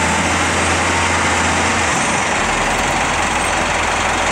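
Diesel engine of a CAT 928G wheel loader running under load as it lifts a bucket of sand, with its deep low note shifting about two seconds in.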